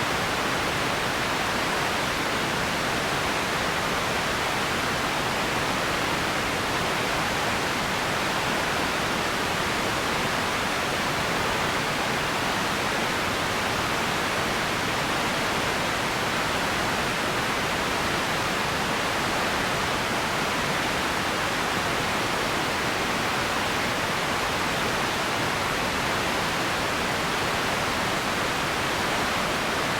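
Empty ambience noise: a steady, even hiss with no distinct events and no change in level.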